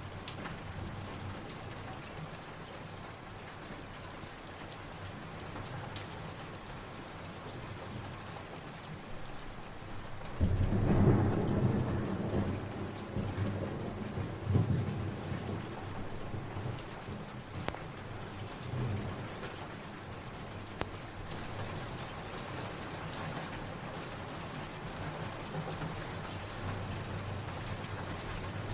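Steady rainfall, with a clap of thunder about ten seconds in that rumbles on, swelling again a few seconds later, before fading back under the rain.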